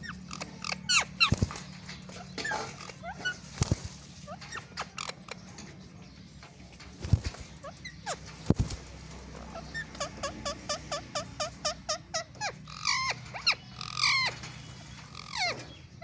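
Indian ringneck and Alexandrine parakeets chattering with short chirps and calls, with a quick even run of repeated notes about ten seconds in, then louder screeching calls. A few sharp knocks come in between.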